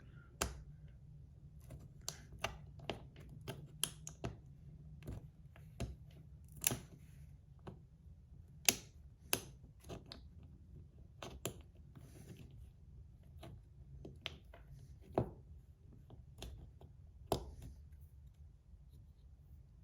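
Irregular sharp clicks and taps, about one a second, from a 3D-printed magnetic fidget slider being handled and slid, its plates snapping into place.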